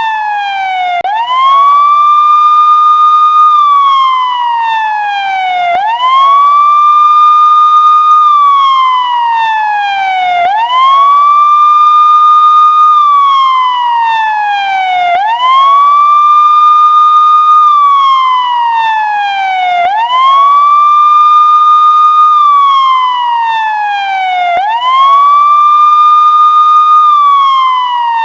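Electronic police siren sounding a steady wail: each cycle swoops up quickly, holds a high note for about a second and a half, then slides slowly back down, repeating about every five seconds.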